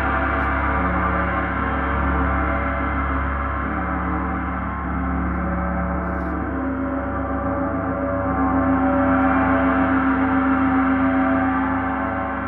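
34-inch Paiste Symphonic gong kept sounding with two soft felt mallets: a sustained wash of many overlapping tones over a deep hum. It swells louder with a fast wavering pulse about eight seconds in, then rings on.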